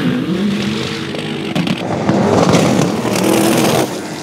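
A drag-racing dune buggy's engine at full throttle, launching and accelerating hard down a sand track, its pitch climbing as it revs up through the run. The engine sound drops off suddenly near the end.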